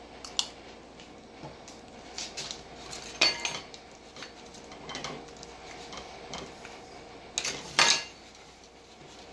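A few sharp clinks and knocks from handling a metal can of PVC cement with its dauber lid and a PVC pipe and cap on a workbench. There is a small clink about half a second in, a ringing clink a little after three seconds, and the loudest, a double knock, near the end.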